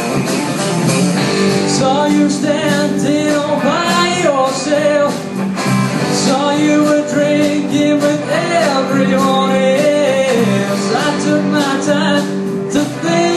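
Live rock band playing: electric guitars and bass guitar over a drum kit, with a wavering lead melody over sustained chords and steady drum hits.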